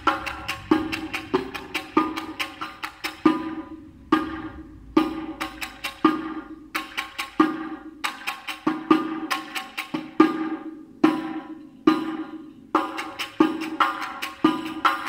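Riq (Arabic tambourine) played by hand in a fast rhythmic pattern of low drum-head strokes and bright jingle rattles. A few short pauses let the strokes ring out, echoing off the concrete under a highway bridge.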